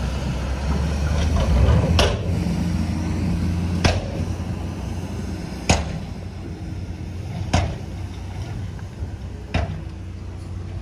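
Heavy diesel engine running low and steady, with a sharp click or knock about every two seconds that grows fainter as it goes.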